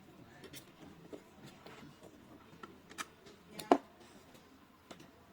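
Smart-lock back panel being fitted against the door: scattered light clicks and taps of hard parts being handled, with one sharp knock a little past halfway.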